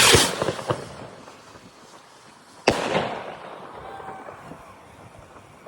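Fireworks going off: a whistling shell bursts right at the start, its crackle fading over the next second. A single sharp bang follows about two and a half seconds in, with an echoing tail.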